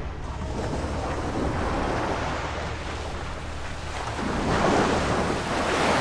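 Sea waves washing in and out, swelling twice, over a steady low hum.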